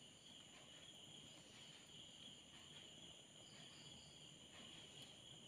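Near silence, with a faint steady high-pitched chirring of crickets.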